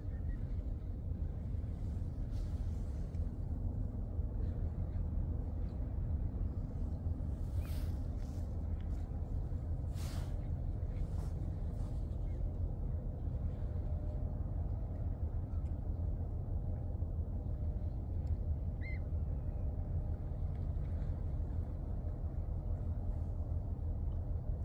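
Low, steady rumble of a loaded container ship passing close by. A few short clicks fall in the first half, and a faint high chirp comes about three quarters of the way through.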